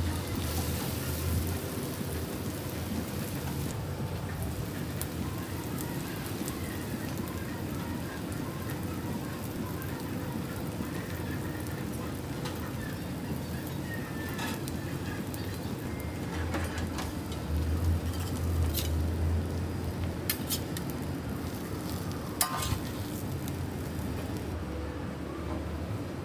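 Egg batter sizzling on a hot flat-top griddle: a steady frying hiss, with a few sharp clicks in the second half.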